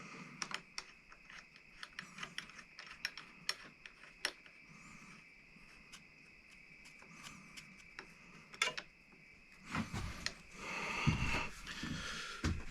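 Hand-guard mounting hardware being handled and a bolt started by hand: scattered small metallic clicks and taps, then louder rustling and knocking handling of the parts near the end.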